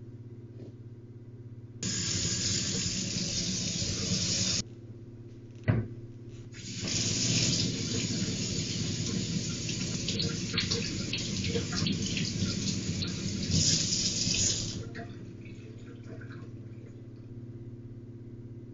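Kitchen sink faucet running in two spells, turned on about two seconds in and shut off at once, then, after a sharp knock, running again for about eight seconds. A steady low electrical hum runs underneath.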